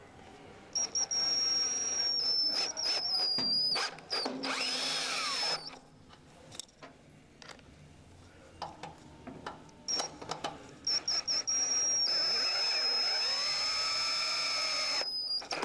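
Cordless drill with a 9/16 socket driving 3/8 self-tapping screws into the steel of a snowplow blade, one screw after the other. Each screw begins with short on-off trigger bursts and then runs steadily, the motor pitch bending as the screw bites in and seats.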